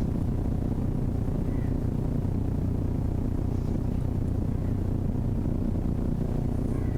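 A steady low rumbling hum with no other events.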